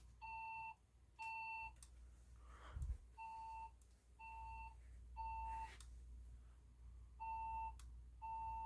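Fire alarm speaker strobe sounding the temporal-three evacuation tone: three half-second beeps about a second apart, a longer pause, then the group again. There is a single dull thump about three seconds in.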